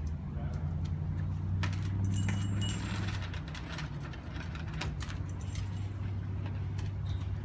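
Metal hand bell ringing in jangling shakes, its ring clearest about two to three seconds in, over the steady low hum of a vehicle engine.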